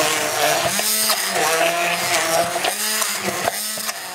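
Braun stick blender running, puréeing raspberry jam and marzipan in a tall plastic jug. The motor hum dips in pitch and recovers several times as the blade works through the thick mixture.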